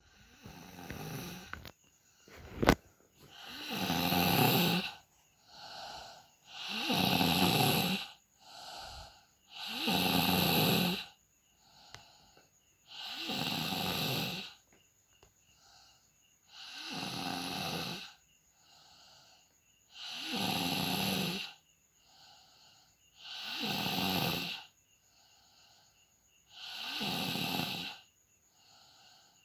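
A person snoring loudly in deep sleep: a loud snore about every three seconds, with a softer breath in between. A single sharp click comes about three seconds in.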